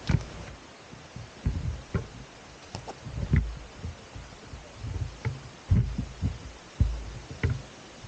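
Irregular low thuds of a hiker's footsteps on a jungle trail, jolting the camera he carries, with a few light clicks in between.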